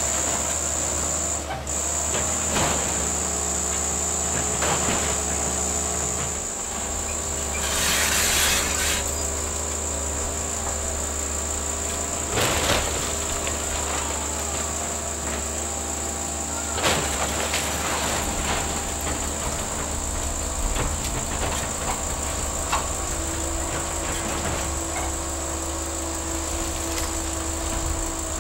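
Link-Belt 160X tracked excavator running steadily as its bucket and thumb tear apart a wood-frame house, with wood and debris cracking and crashing. Two sharp crashes come about 12 and 17 seconds in, and a burst of hiss comes around 8 seconds in. A steady high-pitched whine runs underneath.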